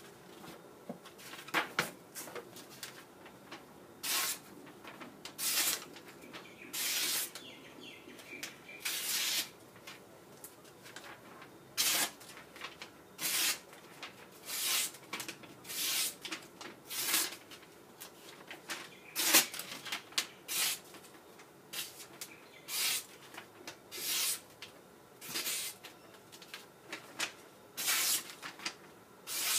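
Opinel No. 10 knife blade being swiped across 1200-grit sandpaper to sharpen it: about twenty separate short scraping strokes, roughly one every second or so.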